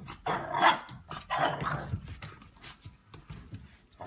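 A dog vocalizing in a few short calls, the loudest ones in the first two seconds.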